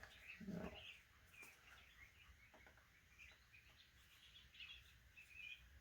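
Faint bird chirps repeating in the background, with a few light clicks of handling.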